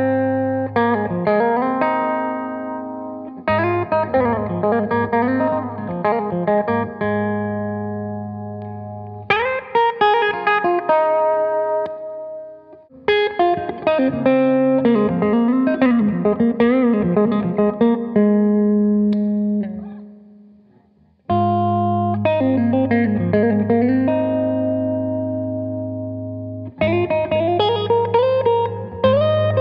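Electric guitar played through a Dr. Z Jetta 30-watt 1x12 tube combo amp, with chords and notes struck and left to ring in phrases. The sound dies away to silence about twenty seconds in, then the playing starts again.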